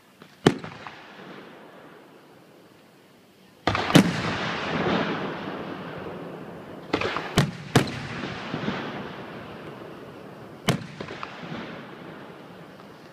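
Aerial fireworks shells going off close by: about half a dozen sharp bangs, three of them in quick succession midway, each followed by a long fading tail of noise.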